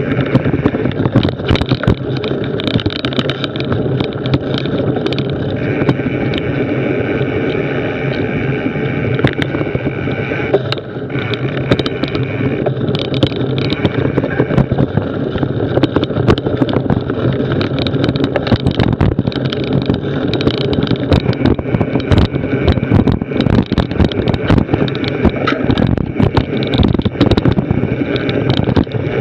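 Mountain bike riding fast over a bumpy dirt trail: a continuous rumble of knobbly tyres and wind on the bike-mounted camera's microphone, with frequent sharp rattles and knocks as the bike and mount shake over roots and ruts.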